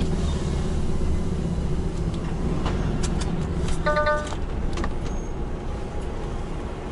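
Lorry's diesel engine running low inside the cab as the truck rolls slowly, a steady rumble. A few sharp clicks, then a short electronic beep about four seconds in.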